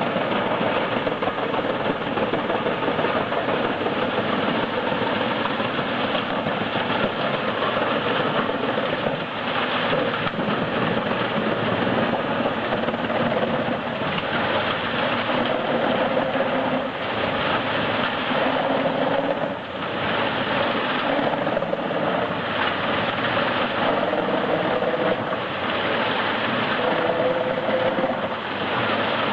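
Heizohack HM 8-500K drum wood chipper running steadily while chipping logs: engine noise mixed with the grinding of the drum, with the engine's pitch wavering slightly.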